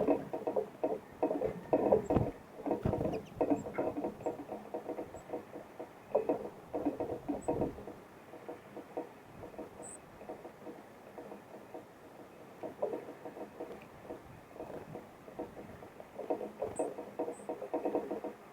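Small birds pecking and shuffling seed on a feeder close to the microphone: bouts of rapid small taps and rattles, with a few brief high chip calls.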